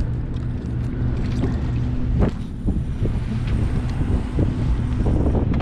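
Steady low engine hum with wind noise on the microphone and a few faint clicks.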